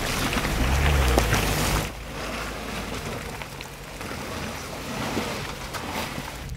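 Suzuki Jimny driving up a muddy, rutted slope: its engine and tyres are heard under heavy wind rumble on a camera mounted beside the front wheel. About two seconds in the sound drops suddenly to a quieter, steady rush.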